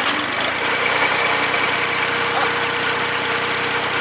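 Dongfeng farm tractor's diesel engine idling steadily, running through its freshly repaired, welded muffler.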